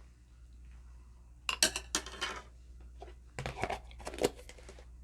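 Two short clusters of crinkling, clicking and clattering from handling food and utensils while topping a chili cheese sausage, the first about a second and a half in and the second near the end.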